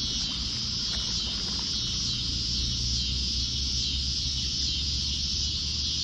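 Steady chorus of summer insects at dusk, a high pulsing trill, over a low steady rumble.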